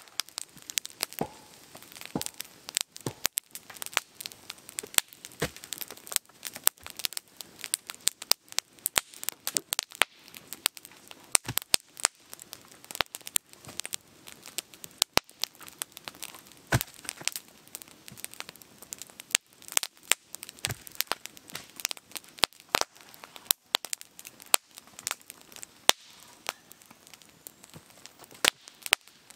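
Small campfire of split wood and kindling shavings crackling, with many sharp, irregular pops and snaps.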